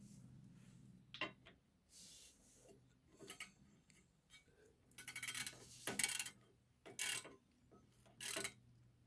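Hand ratchet with a 12 mm socket clicking in short, irregular bursts while tightening down an ATV oil fill cap.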